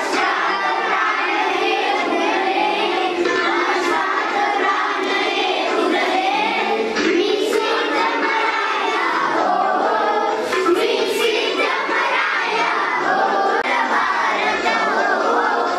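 A class of schoolchildren singing a Marathi song together in unison. Their many voices blend without a break.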